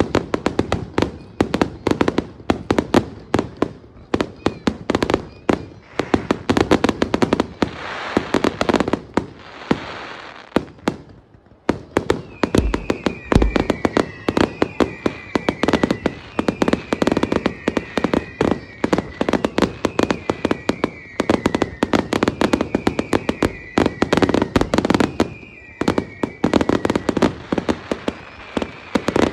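Fireworks display: a dense, rapid barrage of bangs and crackling bursts, with a short lull near the middle. In the second half a whistle falling in pitch repeats several times over the bangs.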